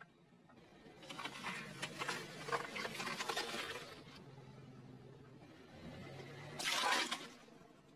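Car tyre slowly rolling over and crushing plastic and squishy objects: a few seconds of dense crackling and popping, then a short loud crunching burst about seven seconds in. A low steady hum runs underneath.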